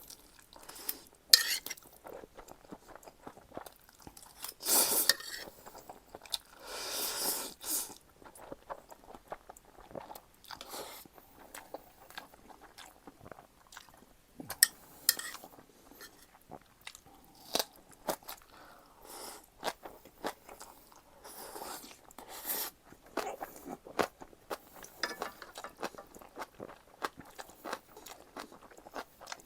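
Close-miked eating of jjapaghetti noodles and green-onion kimchi: irregular wet chewing and crunching, with many small clicks and a few louder, longer bursts about 5 and 7 seconds in.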